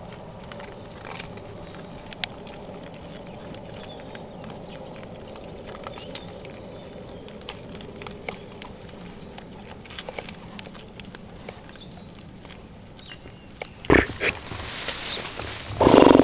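Young wild boars feeding on bait, with scattered small clicks and rustles. Near the end come a few sharp knocks, then a loud burst of squealing and grunting.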